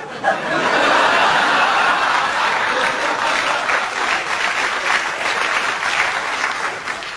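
Audience laughing and applauding. It swells quickly at the start and eases off near the end.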